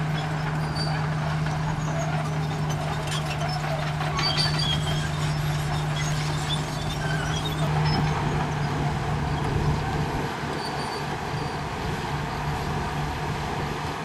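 Heavy diesel engines running steadily with a constant low hum: a dump truck unloading its tipped bed of dirt, then a Komatsu crawler bulldozer pushing dirt. The sound swells a little about eight seconds in and eases slightly after ten.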